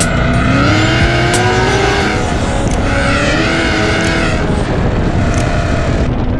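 Chevy SS's supercharged 6.2-litre V8 accelerating hard, its pitch rising in two pulls with a short drop between them.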